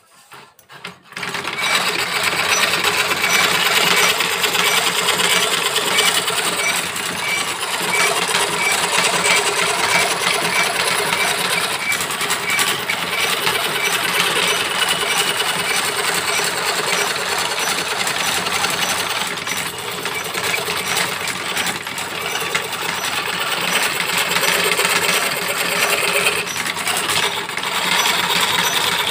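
A steady, rapid mechanical clatter, like a small machine running continuously, with faint regular ticks about twice a second.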